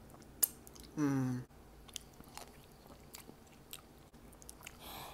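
Eating mac and cheese from a spoon: scattered small clicks and wet chewing, with a short hummed "mm" about a second in.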